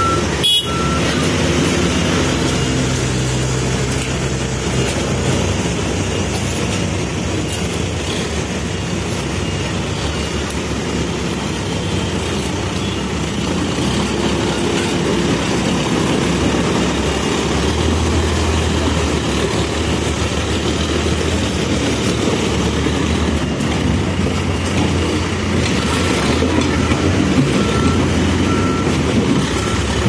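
Backhoe loader's diesel engine running steadily as it works, with a reversing alarm beeping about once a second near the start and again through the last few seconds.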